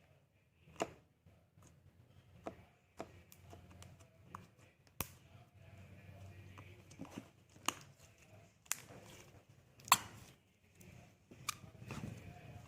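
Irregular sharp clicks and taps, about a dozen, the loudest about ten seconds in, over a faint low hum: small objects being handled and knocked on a hard surface.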